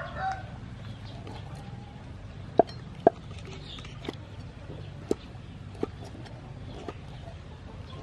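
Cleaver knocking against a wooden chopping board while slicing sea snail meat: about six short, sharp chops at irregular gaps of roughly half a second to a second, the loudest pair about two and a half and three seconds in.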